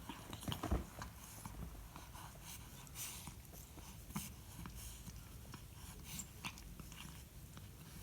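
Small close-up sounds from a cat: one louder burst under a second in, then scattered short clicks and sniffs.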